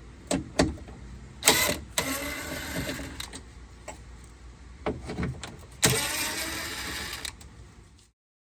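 A small power tool's motor runs in two bursts of about one and a half seconds each, with separate clicks and knocks before and between them, as the 10 mm bolts inside the car door are undone.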